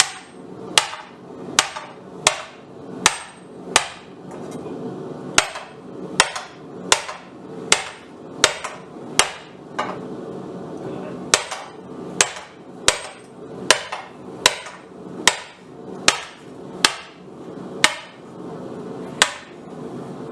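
Blacksmith's hammer striking steel on an anvil in a steady rhythm, a little more than one blow a second, each blow with a short metallic ring; the hammering pauses briefly twice.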